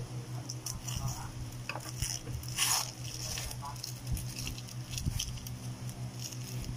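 Rustling and handling noises of packaging being unpacked, with scattered small clicks and one louder rustle about two and a half seconds in, over a steady low hum.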